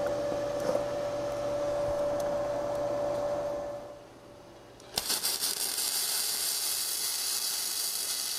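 A steady hum with faint hiss for about four seconds, a short quieter gap, then about five seconds in a flux-core welding arc strikes with a click and runs as a steady crackling hiss, burning Yeswelder gasless flux-core wire.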